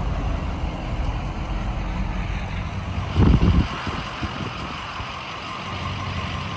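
Power Stroke diesel pickup running on the road, a steady low rumble with road hiss. There is a brief loud low thump a little over three seconds in, after which it runs a bit quieter.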